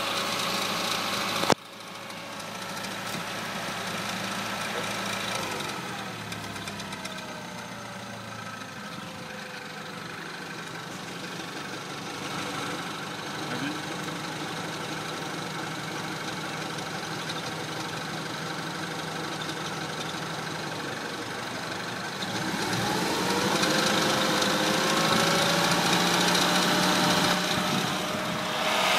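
Citroën DS3's THP 155 1.6-litre turbo petrol engine running, making a noise the owner finds suspect on a car with only 1,200 km. A sharp click about a second and a half in; the engine note falls away around six seconds in and rises again about twenty-two seconds in, louder from then on.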